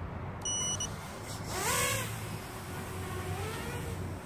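Furibee DarkMax 5-inch racing quadcopter taking off: its DYS 2205 2550KV brushless motors and three-blade props spin up in a sharp rising whine near the middle. It then hovers with a whine that wavers in pitch. A short high beep comes about half a second in.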